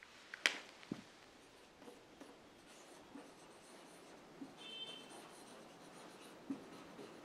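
Marker pen writing on a whiteboard: faint scratchy strokes with a brief high squeak about four and a half seconds in, after a few light clicks in the first second.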